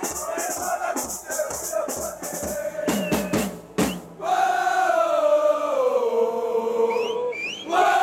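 Football supporters' snare and bass drums beating a quick rhythm under crowd chanting. About four seconds in the drums stop and the crowd sings a long chant in unison, falling in pitch, with a short break near the end.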